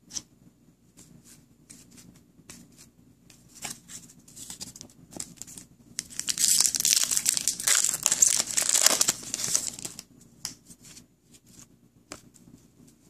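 Upper Deck hockey card pack wrapper being torn open and crinkled, a loud ripping, crinkling stretch from about six to ten seconds in. Before and after it, light scattered clicks of cards being handled.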